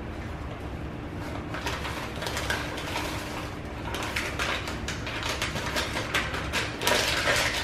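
Dry blueberry muffin mix poured and shaken from a pouch into a plastic mixing bowl: a rustling, pattering pour with the dried blueberries rattling in, starting about a second and a half in and heaviest near the end.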